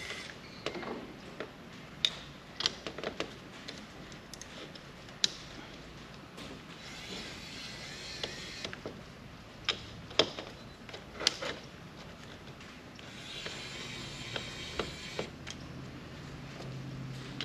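Kaiweets ES20 cordless electric screwdriver whirring in two short runs as it backs out small screws, among many sharp clicks and taps of the tool and small metal parts being handled.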